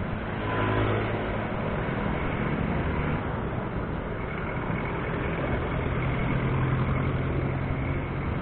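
Road traffic heard from a moving bicycle: a low engine drone from nearby motor vehicles, among them a diesel passenger jeepney, over a steady rushing noise. The drone swells briefly about half a second in and grows louder again through the second half as the jeepney draws close.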